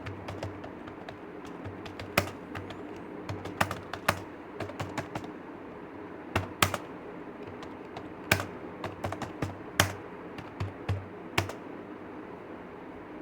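Computer keyboard being typed on: irregular runs of sharp keystrokes with short pauses between them, stopping about two seconds before the end. A steady low hum runs underneath.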